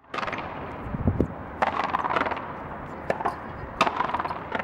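Racket frontón rally: the ball struck by rackets and hitting the wall, heard as irregular sharp cracks and knocks, several close together.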